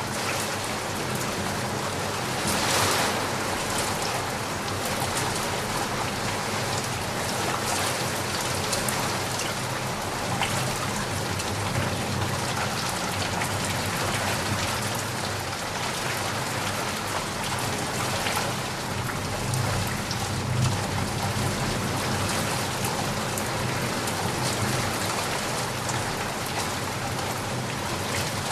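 Heavy rain falling steadily, a dense even hiss of drops, with a brief heavier surge about three seconds in. A low rumble runs underneath and swells about two-thirds of the way through.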